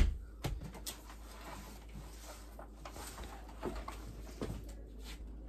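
One sharp knock at the start, then quiet rustling and a few soft taps as a child picks up belongings off a wooden floor, with two short soft sounds sliding in pitch later on.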